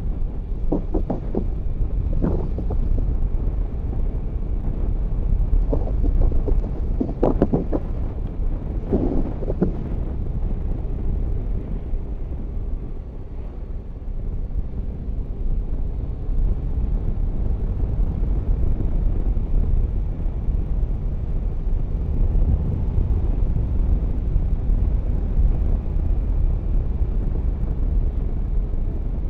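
Wind rushing over the camera microphone on a moving Yamaha Tracer 9 GT motorcycle, with the bike's three-cylinder engine running underneath. The sound is steady throughout, easing briefly about halfway through.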